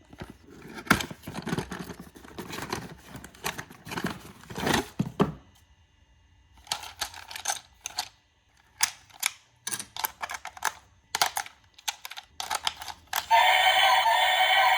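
Plastic packaging and a plastic toy being handled, with rustling and clicking for about five seconds, then a string of separate sharp clicks. Near the end a toy's loud electronic sound effect starts with several held tones.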